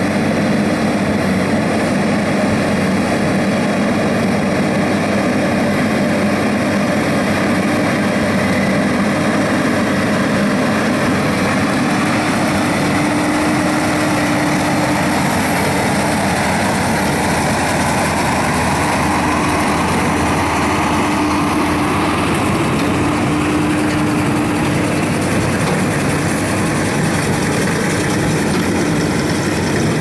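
Versatile 305 tractor's diesel engine running steadily under load while pulling a Case IH 8575 big square baler, the baler's machinery running with it, with a steady hum that swells and fades a little.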